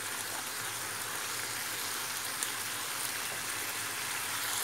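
Chicken, pepper, onion and tomato filling sizzling steadily in a frying pan, with a spoonful of tomato paste frying out in it, and a faint tap of the wooden spoon about two and a half seconds in.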